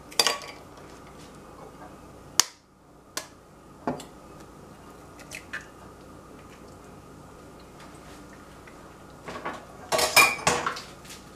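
A few sharp clicks and clinks of glass and dishware. Near the end comes a quick run of knocks with a short glassy ring as an egg is cracked on the rim of a glass bowl to separate it.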